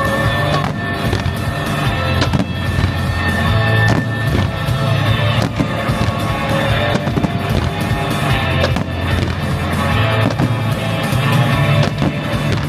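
Music for a fireworks show playing loudly, with a strong bass line, while fireworks go off throughout in repeated sharp bangs and crackles.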